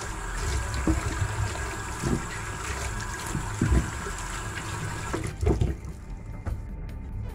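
Tap water running and splashing into a stainless steel sink while hands rub and scrub fresh ginger roots under it, with a few soft knocks of the ginger against the sink. The water noise drops away sharply near the end.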